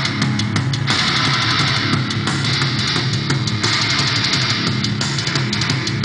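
Loud heavy rock music with guitar and drums, playing without a break.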